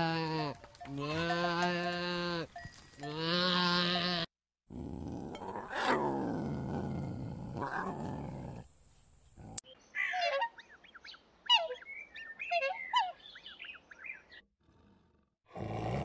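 A young goat bleats three times, each a long, even-pitched call. Then a lioness gives one long, rough roar of about five seconds, followed by a run of short, quick calls.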